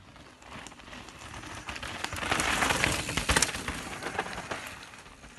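Mountain bike tyres rolling over loose, wet dirt and stones, with scattered clicks and knocks; the sound builds from about half a second in, is loudest two to three seconds in, then fades.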